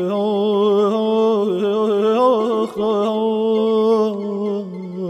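Persian classical-style song: a long, wavering, ornamented sung note held over a steady drone, with a short break in the middle.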